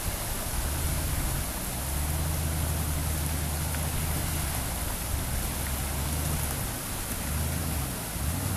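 Steady hiss of a rushing river, with an SUV's engine running low as it crawls over riverbed rocks; the engine rumble dips briefly near the end.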